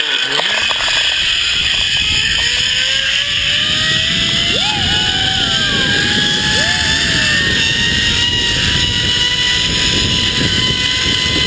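Zipline trolley pulleys running along a steel cable: a whine that climbs in pitch as the rider gathers speed, then holds steady. Heavy wind rushes on the rider's camera microphone throughout.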